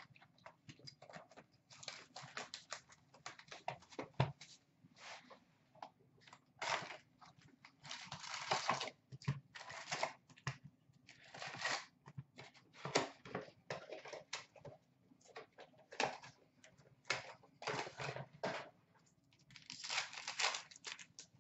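A box of Fleer Showcase hockey card packs being torn open and the packs pulled out and ripped: an irregular string of short tearing and crinkling sounds of cardboard and pack wrappers.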